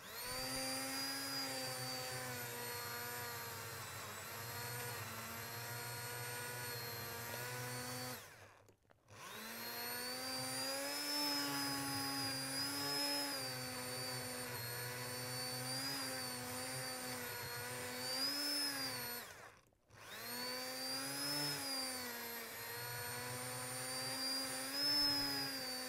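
Commercial immersion blender running in a pot of cooked winter squash soup, pureeing it. It runs in three bursts with brief stops about 8 and 20 seconds in, and the motor's whine wavers in pitch as the blade works through the soup.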